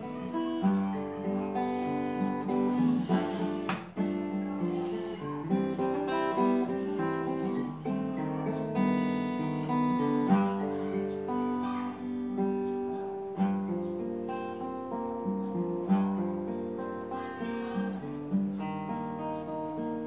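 Takamine acoustic guitar played solo: an instrumental passage of picked and strummed chords, notes ringing on as the chords change.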